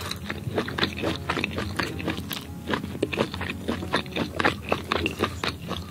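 Steamed sand lizard's skin and flesh being torn apart by hand and chewed close to the microphone: a dense run of quick, wet, sticky clicks and crackles.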